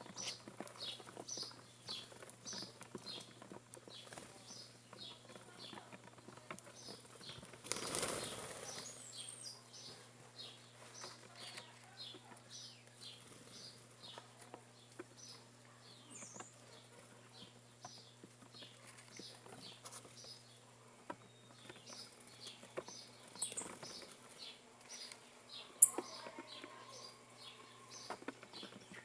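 Small birds at a feeding spot chirping steadily, about two or three short falling chirps a second. A brief flurry of wing flapping comes about eight seconds in, and a sharp click sounds near the end.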